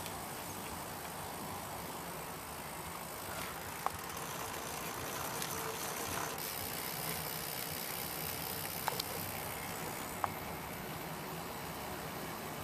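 Steady rumble of tyre and wind noise from a recumbent trike rolling along a tarmac road, with a few faint sharp clicks.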